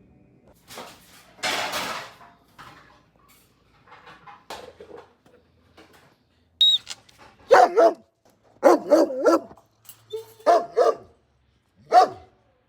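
A pet animal calling: a run of loud, short calls with a wavering pitch in the second half, after a brief burst of noise about a second and a half in.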